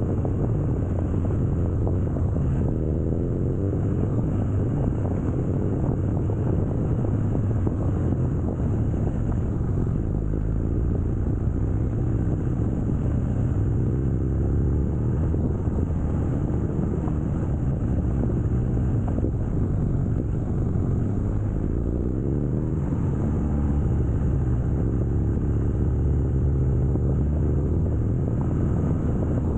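BMW R nineT Scrambler's air/oil-cooled boxer twin running steadily under way, a low rumble with the road and wind noise of riding.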